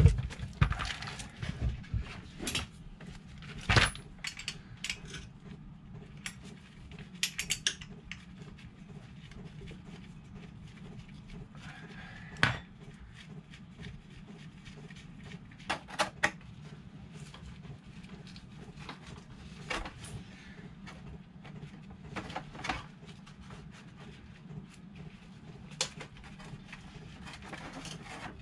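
Metal hand tools and sockets clinking and tapping against metal during motorcycle engine work. Scattered sharp clicks, the loudest about four seconds in and again about twelve seconds in, over a low steady hum.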